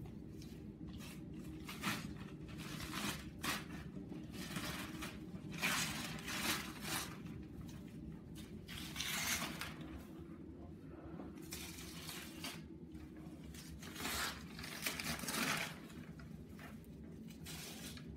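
Gift-wrapping paper being ripped and crumpled off a cardboard box, in irregular bouts of tearing and rustling over a steady low hum.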